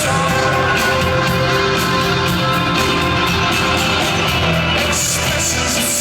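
Live rock band playing at full concert volume: drums with regular cymbal hits over bass and guitars, dense and steady throughout.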